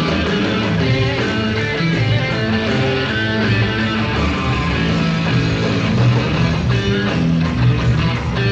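Live hard-rock band at full volume: distorted electric guitar and bass playing a heavy riff together over drums.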